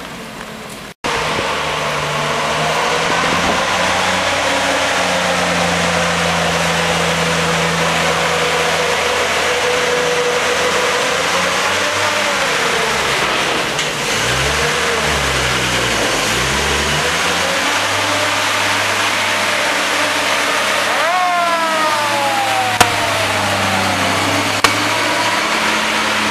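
Vintage fire engine driving by, its engine note rising and falling as it pulls up the slope. Later there is a short whine that rises and then falls away, and two sharp clicks near the end.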